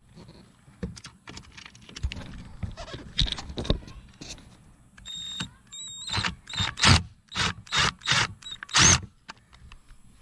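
Cordless drill/driver backing Phillips-head screws out of a trolling motor's head: clicks and knocks as the bit is set into the screws, then, from about five seconds in, a brief whine and about six short, loud bursts of the driver spinning.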